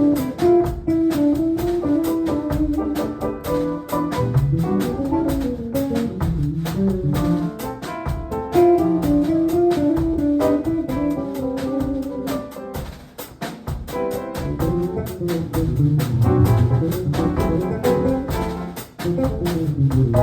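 Jazz piano trio playing live: acoustic piano with double bass and drum kit, keeping a steady swing rhythm.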